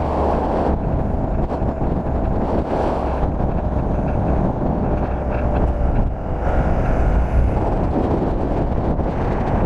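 Wind rushing and buffeting over the microphone at downhill speed, over a steady rolling noise from longboard wheels on tarmac.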